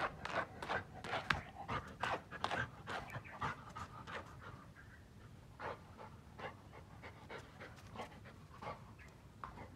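Golden retriever panting in quick short breaths, packed close together for the first few seconds and then more spaced out.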